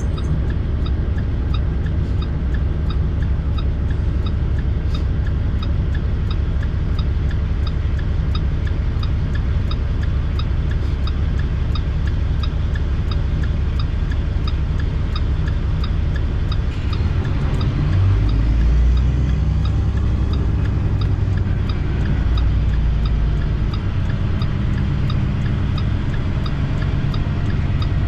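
International ProStar semi truck's diesel engine running steadily under a low rumble, with faint, evenly spaced ticking above it. About two-thirds of the way through, the engine note deepens and grows heavier for several seconds.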